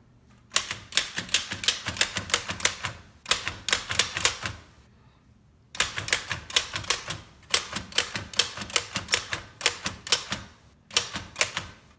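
Oliver No. 11 typewriter being typed on with the capitals shift locked: quick runs of key strikes, about five or six a second, with short pauses between runs and the longest pause about five seconds in.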